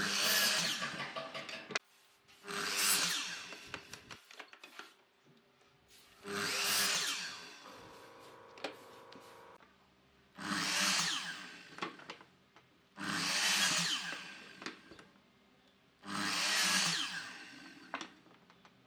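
A power tool working wood in six short bursts of about one and a half seconds each, with brief gaps between them.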